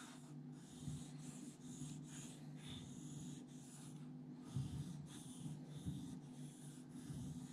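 Hairdressing scissor blade scraping back and forth on a wet 1000-grit Naniwa Super Stone water stone, a faint, quick, repeated rasp of about two to three strokes a second, honing the edge flat. A low steady hum runs underneath.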